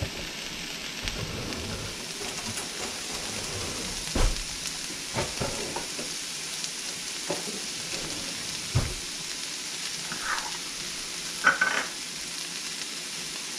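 Diced onion, red bell pepper and celery sizzling steadily in hot oil in a wok, a sofrito being sautéed. A few light knocks and clinks of utensils come through the sizzle, the loudest about 4 s in and near the end.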